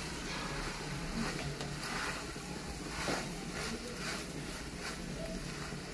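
Macaroni and vegetables being stirred with a spoon in a steel frying pan: soft scraping and tossing strokes every second or so over a steady hiss from the pan on the stove.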